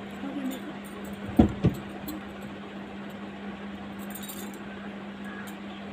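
Two dull knocks in quick succession about a second and a half in, over a steady low hum, with faint small clicks.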